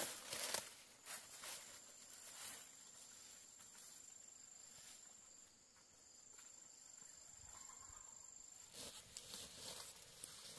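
An insect's thin, steady high-pitched call, held from about a second in until near the end, with a few footsteps at the start and again near the end.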